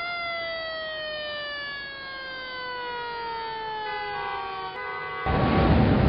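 A siren wail that falls slowly in pitch for about four seconds, then breaks into a few steadier tones. About five seconds in, a sudden loud rushing noise cuts in and drowns it.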